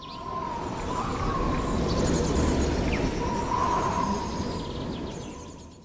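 Wind sound effect of a strengthening gust, swelling up and then dying away over about five seconds, with faint birds chirping.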